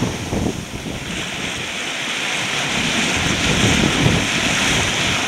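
Wind buffeting the microphone over the rush of whitecapped seas and water streaming past a sailboat's hull as it runs downwind, a steady noise that grows gradually louder.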